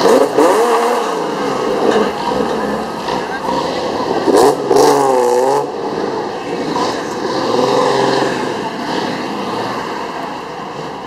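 Classic cars driving slowly past one after another, engines running, with people's voices over them, loudest about halfway through.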